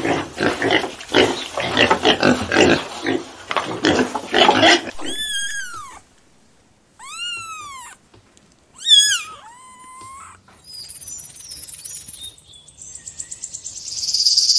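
A series of different animal calls: about five seconds of rough, pulsing growls or grunts, then three separate high cries that rise and fall in pitch, then a high steady buzz from about eleven seconds in.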